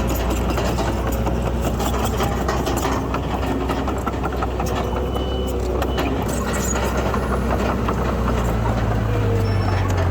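Heavy diesel engine of earthmoving machinery running steadily, its low note stepping up to a higher pitch about eight and a half seconds in.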